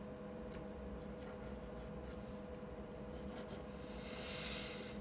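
Pen writing on paper: light scratching strokes and small taps, the longest scratching stroke near the end.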